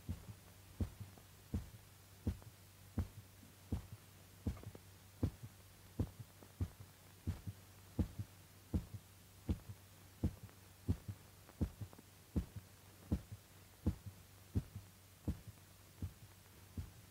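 A dog's heartbeat: steady double beats, a strong thump followed by a weaker one, about every three-quarters of a second, over a steady low hum.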